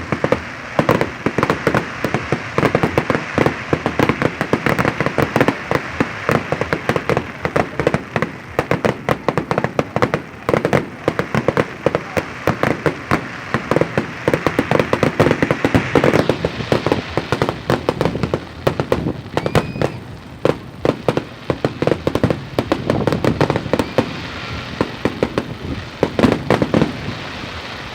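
Fireworks going off without a break: a dense, rapid crackle of many small bangs, thinning out somewhat after about halfway.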